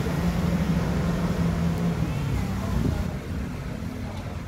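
Street traffic: a motor vehicle's engine hums steadily close by, then eases off about three seconds in.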